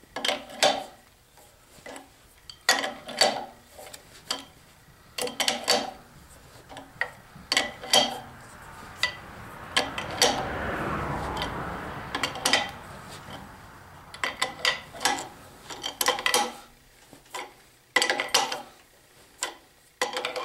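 Steel adjustable wrenches clinking on a harmonic balancer installer's nut and threaded rod, in clusters of sharp metallic clicks every few seconds, as the tool presses the balancer onto a Chevy 350 small-block's crankshaft snout. About halfway through a rough rubbing noise swells for a few seconds.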